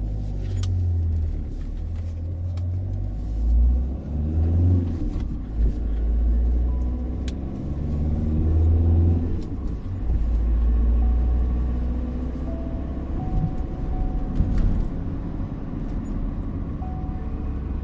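Car driving on the road: a steady low engine and road rumble whose pitch swells and falls a few times, with occasional light clicks. A few faint, sustained notes of a gentle melody come in partway through.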